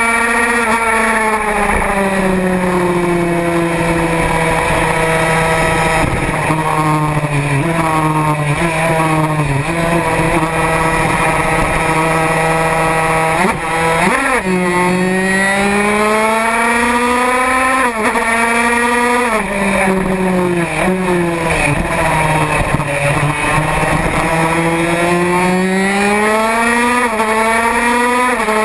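Racing motorcycle engine heard from on board, running hard at high revs. Its pitch climbs and drops repeatedly with throttle and gear changes, with a sharp dip and recovery about halfway through, over a steady rush of wind.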